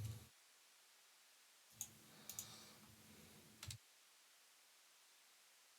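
Near silence broken by a handful of sharp clicks over a faint low hum, starting about two seconds in and ending with a double click near the middle.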